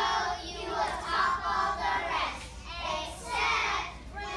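A group of young kindergarten children singing together in phrases, their voices overlapping.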